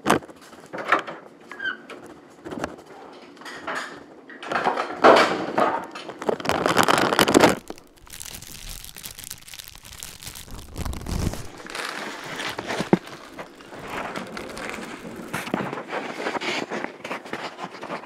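Handling noise from a plastic-wrapped burrito on a paper plate: wrapper crinkling with scattered knocks and bumps, louder rustling for a few seconds about a third of the way in, and a single sharp click about two-thirds through.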